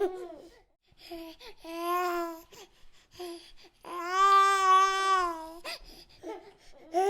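Baby fussing in short cries and babbling, breaking into a wail about two seconds in and a longer held cry from about four seconds in, the loudest part.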